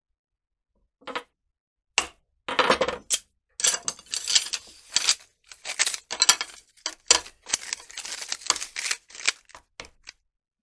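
Strips of split, toasted bamboo cane clicking and clattering against each other as a bundle of them is handled: one click about a second in, then a quick, irregular run of sharp knocks.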